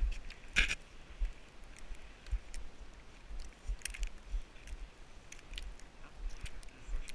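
A sled sliding over snow: irregular crunching and scraping under the sled, with low bumps throughout and one brief, sharper burst about half a second in.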